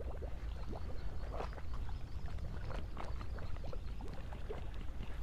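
Gentle waves lapping and splashing against a concrete seawall, with faint scattered splashes over a steady low wind rumble on the microphone.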